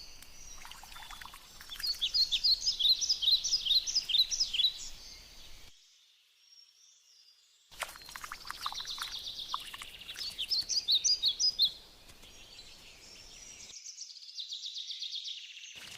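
Songbird singing in quick runs of high chirps, in two spells of a few seconds each with a short near-silent break between them, then fainter twittering near the end.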